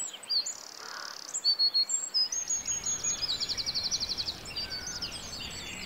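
Several songbirds singing at once: quick high chirps and whistles, with a fast rattling trill about three seconds in. A faint low background noise comes in about two seconds in.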